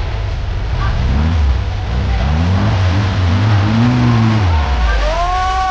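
Off-road 4x4's engine revving under load, its pitch rising and falling in a few surges.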